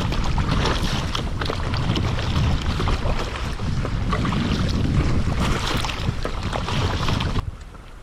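Kayak paddle strokes splashing through the water, with wind buffeting the microphone as the kayak moves across the sea. Near the end the sound drops suddenly to a much quieter background.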